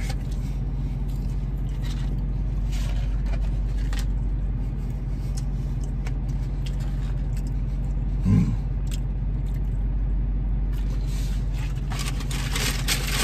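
Steady low hum of a running car heard inside its cabin, under the sounds of a man chewing fries and handling a paper fries carton. A brief pitched 'mm'-like voice sound about eight seconds in.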